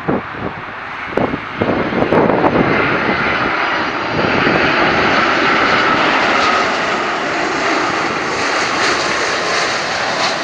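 An airliner flies low overhead: a loud, steady engine rush that builds over the first two seconds and then holds, with a faint high whine in it. A few short thumps come early on.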